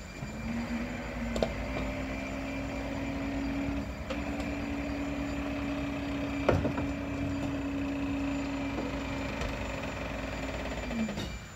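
Mack garbage truck's engine brought up to raised revs to drive the hydraulics of its Leach 2R-III rear-loader packer: a steady running tone that steps up in pitch a couple of times and drops away near the end. A few sharp metallic clanks from the hopper and packer, the loudest about halfway through.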